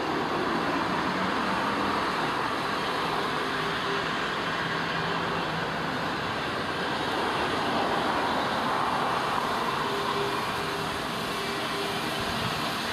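Small steam tank locomotive and its coaches moving slowly: a steady hiss and rumble with no distinct exhaust beats.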